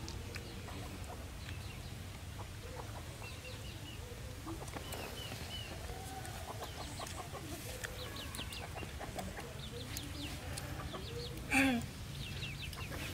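Chickens clucking with small birds chirping in the background, over a steady low rumble. A brief, louder sound stands out about a second and a half before the end.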